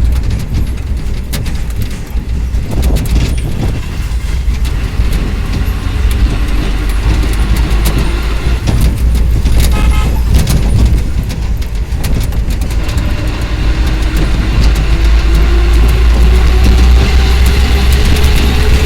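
A motor vehicle's engine running with a heavy low rumble, its pitch slowly rising through the second half as it speeds up. A short horn toot sounds about ten seconds in.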